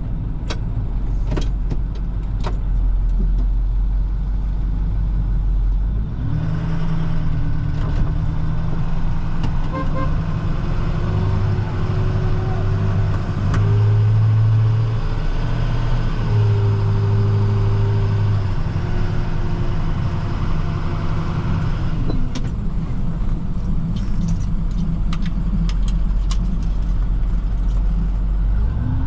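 A manual-transmission work truck's engine heard from inside the cab. It drones low for about six seconds, then pulls harder, its note stepping up and down as it works through the gears. Around 22 seconds it drops back to a low drone, then picks up again at the very end, with scattered light clicks over it.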